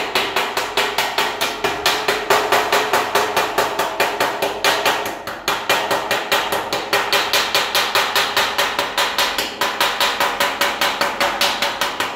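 Rapid, evenly spaced hammer blows on a steel trailer fender, several a second, over a steady ringing note from the sheet metal.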